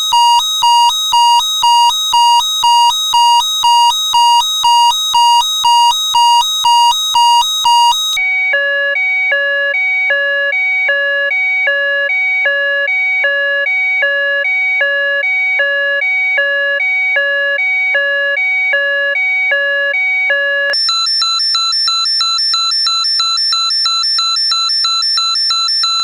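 Three electronic alarm sounds one after another: a fast beeping alarm, about two beeps a second, then a two-tone alarm switching back and forth between a low and a high pitch, then a steady high-pitched alarm tone.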